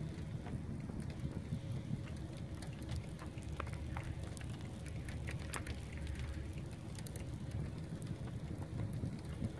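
Wind buffeting the microphone as a steady low rumble, with scattered light ticks.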